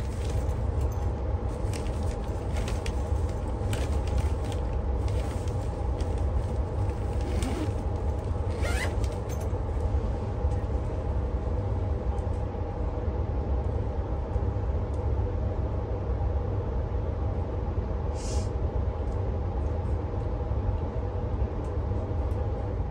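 Steady low rumble and hum inside a standing Oscar H-set double-deck electric train carriage, from its air-conditioning and onboard equipment, with a few faint clicks and a short hiss about 18 seconds in.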